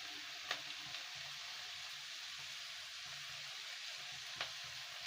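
Chopped onion, tomato, herbs and grated coconut sizzling steadily as they fry in oil in a pan, with two light clicks, one about half a second in and one near the end.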